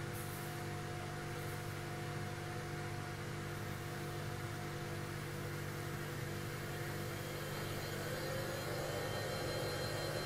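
Mini disc sander built on an old hard drive's spindle motor, running with a steady hum and whir; from about eight seconds in the sound rises and grows a little louder as its control knob is turned.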